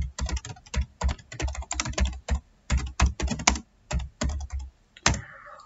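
Typing on a computer keyboard: quick, irregular runs of keystrokes with short pauses, stopping about five seconds in.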